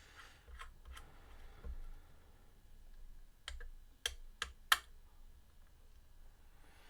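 Small metal guitar hardware (washers and nuts) being handled on a workbench: a few faint taps, then four sharp clicks in quick succession in the middle.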